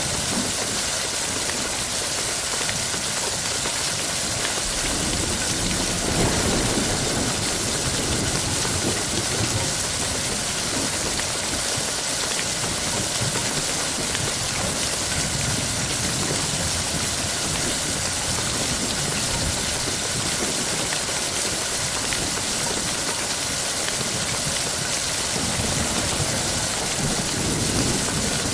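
Steady heavy rain, an even hiss of falling drops. Low rumbles swell briefly about six seconds in and again near the end.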